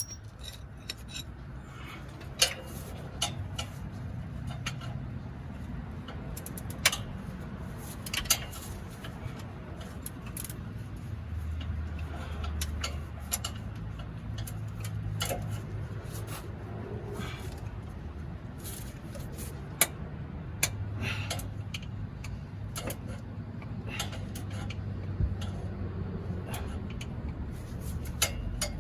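Scattered metallic clicks, clinks and knocks of hand tools and parts being handled, irregular and a second or more apart, over a low steady rumble.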